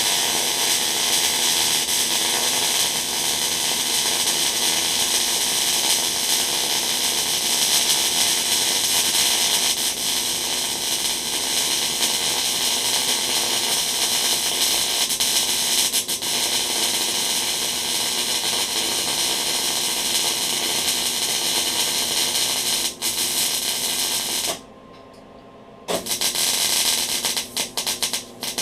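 Wire-feed (MIG) welder arc crackling steadily while a bead is run, joining a hook to a cast excavator bucket. The arc stops about 24 seconds in, then strikes again for a few short, stuttering runs near the end.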